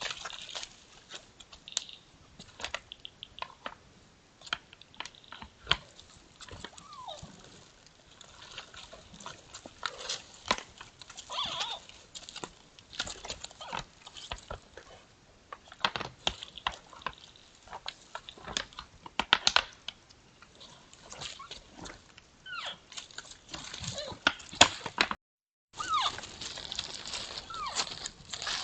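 Two sambar deer sparring: their antlers clack and knock together irregularly, with a few short falling calls from the deer now and then.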